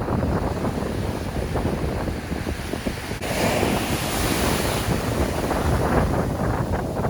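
Rough sea surf breaking and washing up a beach, with wind buffeting the microphone in a low rumble. About three seconds in, a wave's wash swells into a louder hiss.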